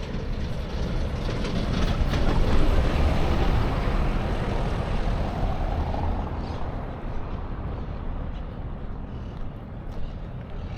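A vehicle passing close by: a rumbling rush of noise that swells over the first couple of seconds, is loudest around three seconds in, and fades away by about seven seconds.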